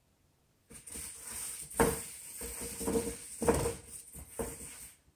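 Cardboard cat scratcher being shoved and flipped about by a cat, scraping and knocking on a wood floor, with several thumps, the loudest about two seconds in. A faint steady high tone runs under it, starting and stopping suddenly with the commotion.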